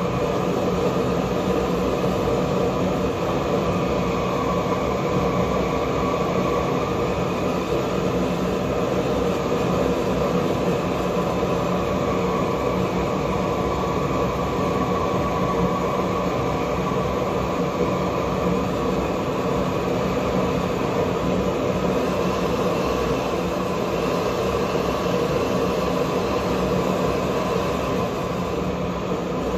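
Handheld propane torch burning steadily with an even rushing flame noise while it heats an aluminum branding iron.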